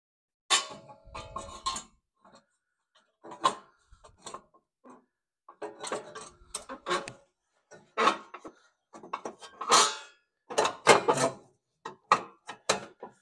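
Irregular knocks and clatter of metal and plastic engine parts being handled and fitted by hand onto the mower engine over the carburetor, with the busiest, loudest clatter in the second half.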